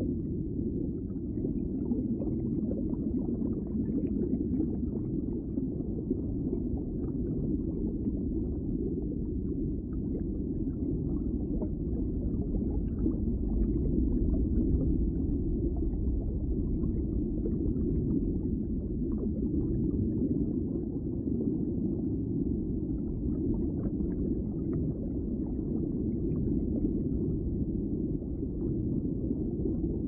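Steady, muffled rush of running water, a low even noise with no breaks.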